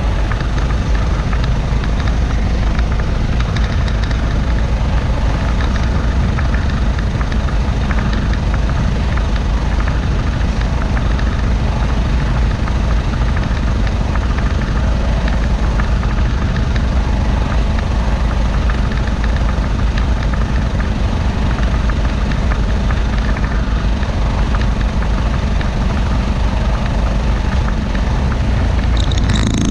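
Concrete mixer truck's diesel engine running at idle while the truck stands still, a loud, steady low rumble close by.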